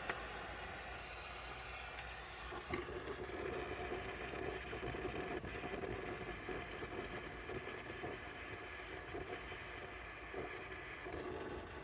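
Butane gas soldering torch: a couple of sharp clicks, then the flame burning with an uneven, fluttering rush from about three seconds in.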